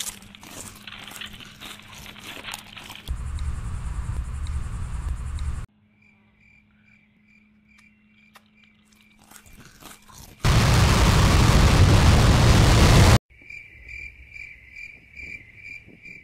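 Crickets chirping in a steady pulsing rhythm, broken by sharp crunching and rustling from a bag of potato crisps being eaten. Two blocks of loud noise cut in and out abruptly, one about three seconds in and a louder one about ten seconds in.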